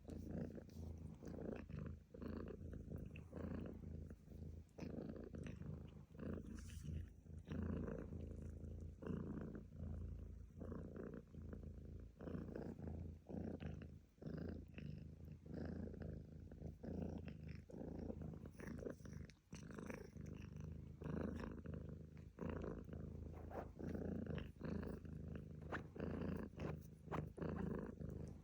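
Domestic cat purring continuously, the low rumble broken by brief dips about every second.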